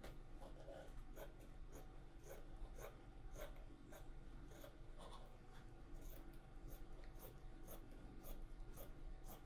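Dressmaking scissors cutting through fabric in a faint, regular run of snips, roughly two a second.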